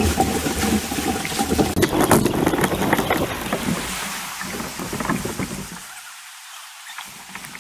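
River water rushing through shallow rapids around a tandem kayak, with paddle splashes and wind on the microphone; it grows quieter in the second half as the kayak passes out of the rough water.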